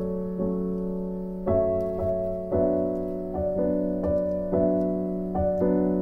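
Background piano music: soft notes struck about once or twice a second over a held low note.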